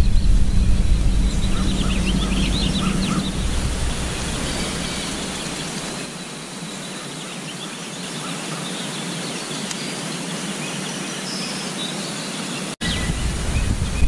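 Outdoor ambience: a steady wind-like rushing noise with a few small bird chirps in the first few seconds. The noise thins and quietens midway, cuts out for an instant about a second before the end, then comes back louder.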